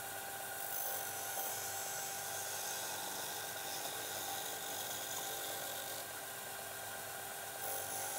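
Ryobi bench belt and disc sander running steadily with a whirring motor, as a piece of pallet wood is pressed against its sanding disc. The sound turns harsher about a second in and again near the end.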